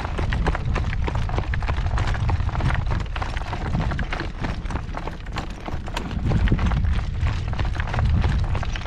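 Hoofbeats of a newly shod horse clip-clopping at a trot on a hard road, many sharp clicks over a steady low rumble.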